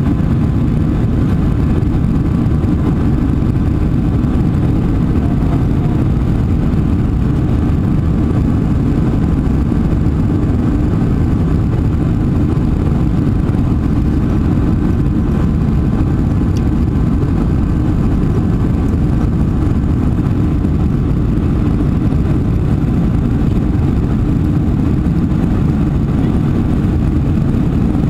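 Cabin noise of a Boeing 747-400 in flight after takeoff: engines and rushing air heard through the fuselage as a loud, even, deep rumble, with a faint steady hum above it.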